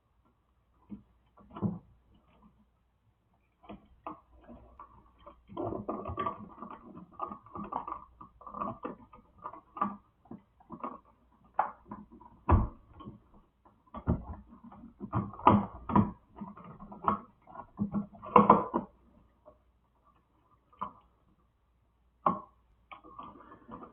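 Hands working electrical wires into plastic lever-type wire connectors: irregular clicks, taps and rustling, busiest through the middle, with a few sharper knocks.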